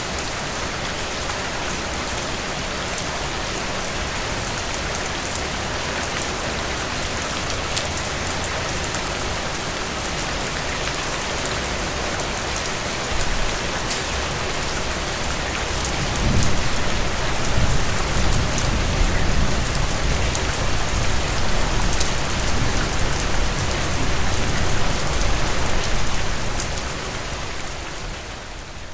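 Heavy rain falling steadily, with many sharp drips through it. A little past halfway a deep low rumble swells in under the rain, and near the end the sound fades down.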